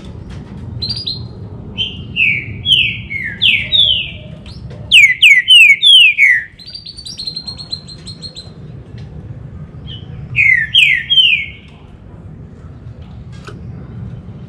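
Green-winged saltator (trinca-ferro) singing: loud phrases of quick, sharply falling whistled notes, with a buzzy held note in the middle and a short three-note phrase near the end.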